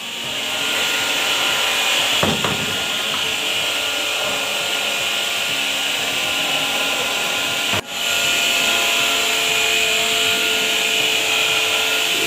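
Steady whirring of an electric workshop machine, building up over the first second and dipping for a moment about eight seconds in.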